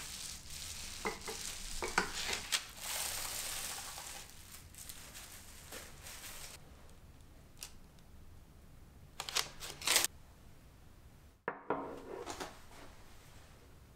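Wooden rolling pin rolling over bubble wrap pressed onto soft dough: a steady crinkling hiss of plastic with small clicks, which stops about six seconds in. A few short, louder plastic rustles follow a few seconds later, and near the end comes a light knock of a small ceramic bowl being handled on a wooden tabletop.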